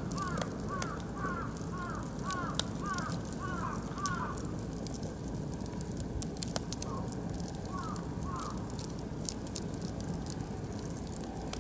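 Oak and beech wood fire crackling with scattered sharp pops. A bird calls over it repeatedly, about two calls a second, through the first third, then twice more about two-thirds through.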